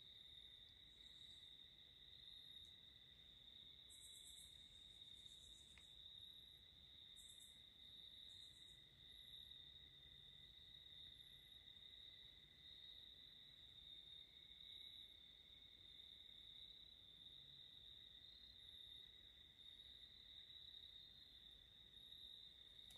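Faint, steady chorus of crickets trilling without a break, with a few brief higher insect buzzes about four to nine seconds in.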